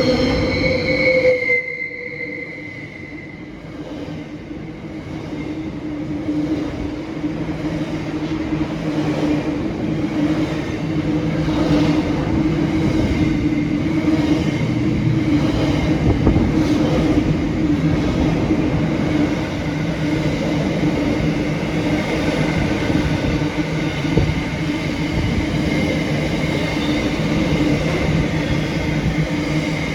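A train horn sounds and cuts off about two seconds in. Then a train runs past steadily, with a held low hum over the rumble of the running train.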